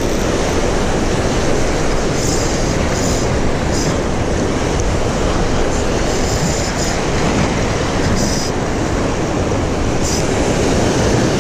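Surf breaking over shoreline rocks, with wind buffeting the microphone: a loud, steady roar.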